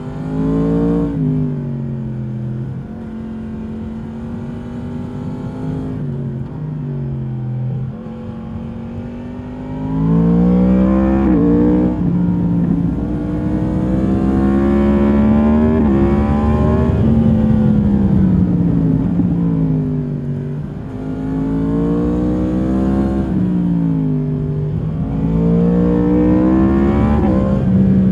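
2022 Yamaha MT-10's crossplane inline-four on its stock exhaust, ridden hard. The engine note is gentler and quieter for the first ten seconds or so, then it accelerates harder and louder, its pitch climbing and dropping sharply at each gear change.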